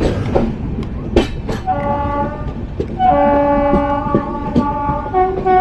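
Train horn sounding a long, steady blast that begins about two seconds in, grows stronger, and shifts to a different chord near the end, over the running rumble of a moving train with a few sharp clicks of wheels on rail joints early on.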